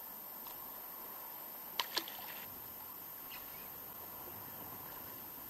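Steady wash of choppy sea water around an inflatable boat, with two sharp clicks close together about two seconds in.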